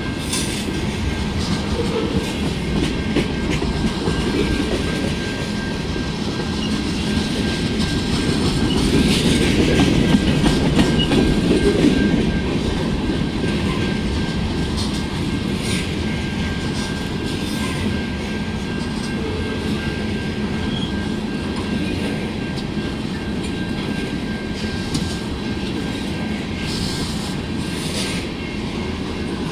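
Freight train tank cars rolling past close by: steady rumble of steel wheels on rail, with scattered clicks as the wheels cross rail joints. The rumble swells for a few seconds near the middle, with a thin steady high tone underneath.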